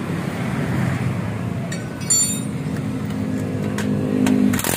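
Cordless drill spinning a bolt on the bracket of a motorcycle muffler, running steadily for about two and a half seconds from near the middle and stopping suddenly near the end. A few metallic clinks come just before it, over a steady low rumble.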